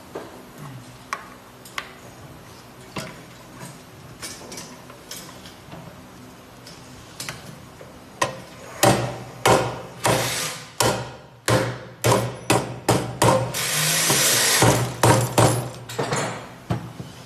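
Rubber mallet knocking a headset bearing cup into the head tube of an electric bike frame. A few light, scattered taps come first, then a quick run of harder blows in the second half, with a short stretch of continuous noise among them.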